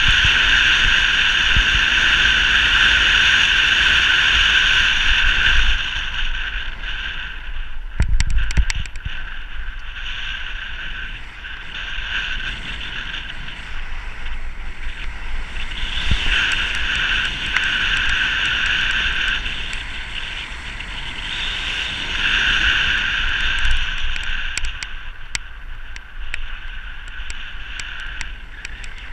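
Wind rushing over a bike-mounted camera on a fast road-bike descent, with low buffeting rumble and a hiss that rises and falls with speed, loudest in the first few seconds. A short thump about eight seconds in, like a bump in the road.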